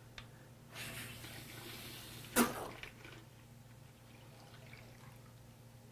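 Water rushing through a dispensing unit's bucket-fill valve, triggered open about a second in, as the freshly reassembled diaphragm valve is tested. The flow ends with a short, sharp squeak about two and a half seconds in.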